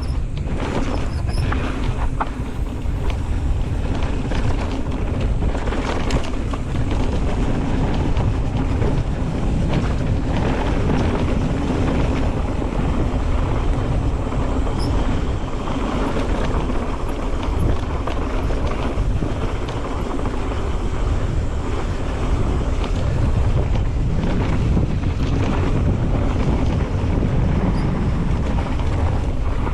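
Mountain bike descending a dirt downhill trail: wind buffeting the camera's microphone over the steady rumble of the tyres, with occasional clicks and knocks as the bike rattles over bumps.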